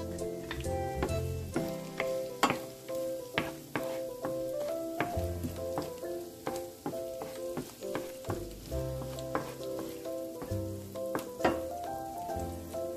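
Ginger and garlic sizzling in hot oil, stirred with a wooden spatula, with frequent sharp clicks. Background music with held notes and a bass line plays throughout.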